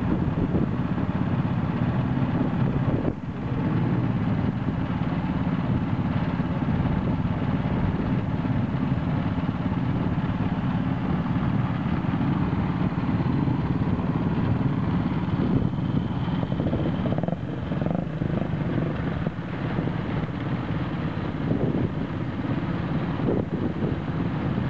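Vintage single-cylinder motorcycle engine running at idle with a steady, fast chugging beat.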